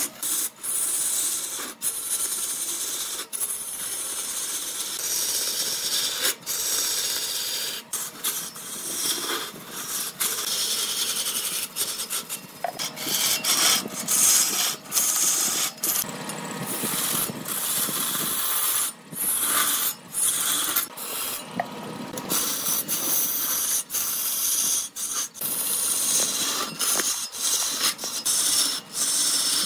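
A turning tool scraping and cutting into spinning wood on a lathe: a steady hissing scrape that breaks off briefly many times as the tool is lifted or shifted.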